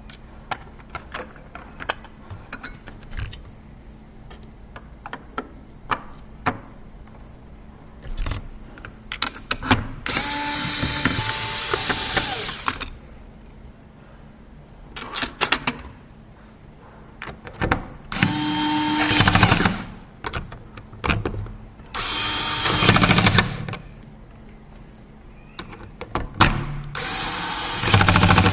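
Small electric screwdriver running in short bursts, four main runs of two to three seconds each, as if driving screws during a PC build. Light clicks and taps of parts being handled come before and between the runs.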